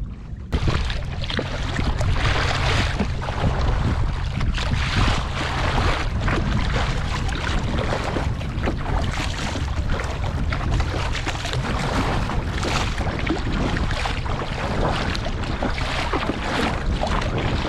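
Strong wind buffeting the microphone at sea, a steady low rumble with gusts, over the wash of choppy water. It starts abruptly about half a second in.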